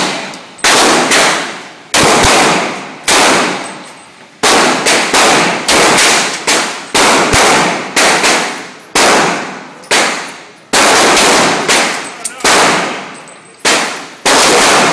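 Gunfire at a shooting range: a string of about twenty single shots, irregularly spaced half a second to a second apart, each followed by a long fading echo.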